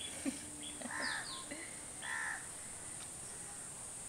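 A crow cawing twice, about a second in and again just after two seconds, over a steady high-pitched background whine.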